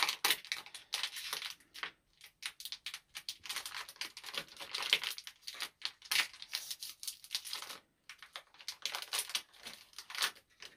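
Shiny plastic toy packets crinkling and tearing as they are handled and pulled open, in irregular crackly bursts with short pauses.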